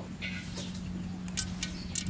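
Cooking oil pouring from a bottle into a metal wok, a faint steady trickle with a few light ticks, over a low steady hum.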